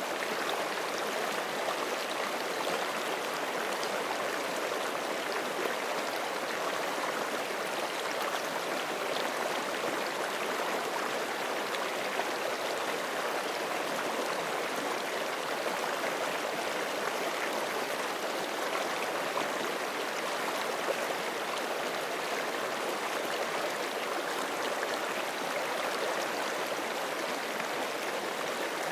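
Forest creek running over rocks: a steady rushing and gurgling of water that holds even throughout.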